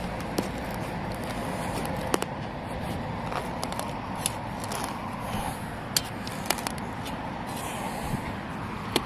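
A spade cutting and levering a plug out of dry, grassy turf: several sharp clicks and scrapes over steady background noise.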